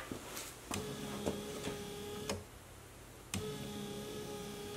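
2014 GMC Terrain windshield wiper motor running and driving a newly fitted wiper linkage. It makes a steady whine with light clicks and drops quieter for about a second just past the middle. The system is working normally on the replaced linkage.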